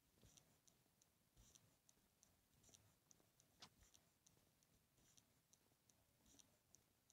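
Near silence with faint, irregular soft clicks, a few a second, and one sharper tick about three and a half seconds in.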